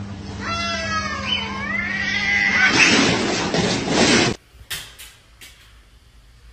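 Two domestic cats caterwauling at each other: long, wavering yowls that bend up and down in pitch, turning into a louder, rougher screech about three seconds in that cuts off suddenly.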